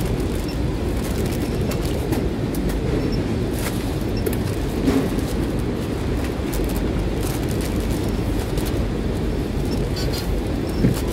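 Steady low rumble of warehouse conveyor machinery, with a few short clicks and rustles from mailers and a handheld scanner being handled.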